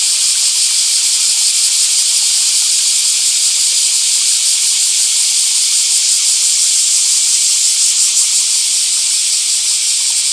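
Running water of a small stream, a steady, unbroken hiss-like rush.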